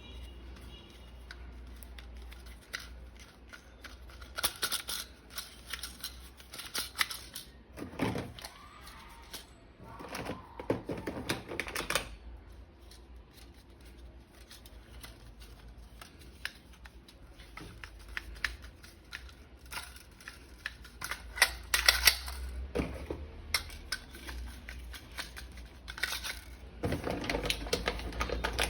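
Irregular clicking, snapping and scraping of plastic toy parts and packaging being handled, with a few louder bursts of clicks.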